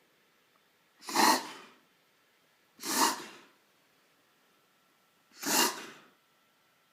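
Greyhound reverse sneezing: three loud snorts through the nose, each under a second, about two seconds apart.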